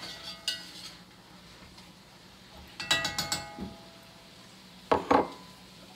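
A spoon clinking and scraping against a cast-iron Dutch oven while onion and ham are stirred, in short bursts with brief ringing: a few at the start, a quick cluster in the middle, and two knocks near the end.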